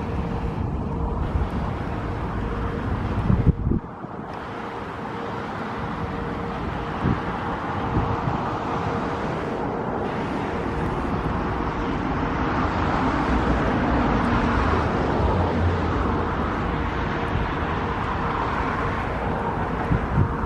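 Steady outdoor vehicle noise with wind buffeting the microphone. The noise swells and fades about twelve to sixteen seconds in, as a vehicle passes.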